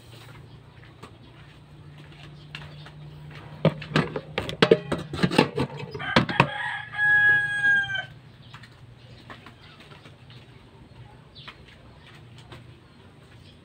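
A rooster crowing once, one long call about a second and a half long, a little past the middle. It comes just after a quick flurry of sharp knocks or flaps, which are the loudest part.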